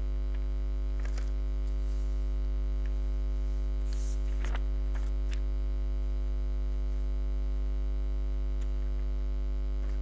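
Steady electrical mains hum, with a few faint brief ticks.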